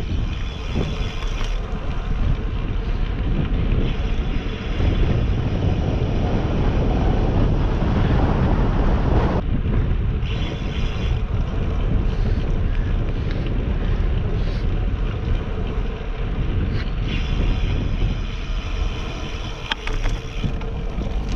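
Heavy wind buffeting a GoPro's microphone on a moving bicycle: a loud, steady rumble that holds throughout, with the top end briefly dropping out about halfway through.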